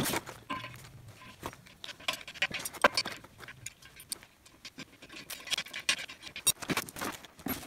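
Scattered small metallic clicks and clinks of hardware being handled as a caster wheel is bolted onto the end of a steel engine-hoist leg: bolt, washers and nut knocking against the wheel bracket.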